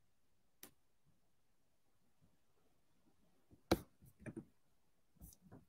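Near silence: room tone, broken by a few short clicks, the loudest a little past halfway.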